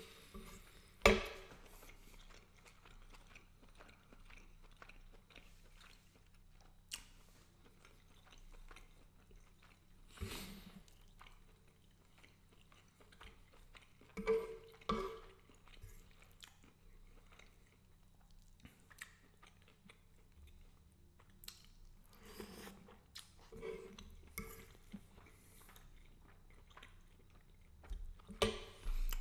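Close-up eating sounds of a person chewing garlic butter shrimp pasta, with scattered short mouth sounds. A sharp knock about a second in is the loudest sound.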